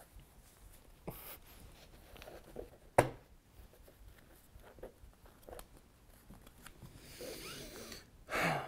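Playing cards handled on a cloth-covered table: soft sliding and rustling of cards, with one sharp snap of a card about three seconds in.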